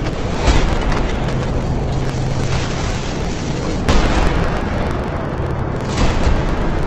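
Film-trailer sound design: a continuous rushing noise like a storm surge, cut by three heavy booming hits, about half a second in, near four seconds, and about six seconds in.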